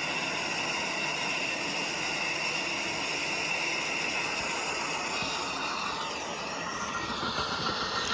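A train running past on the tracks: a steady rush of wheel and rail noise with high whining tones. From about five seconds in, the whine slides down in pitch as the train goes by.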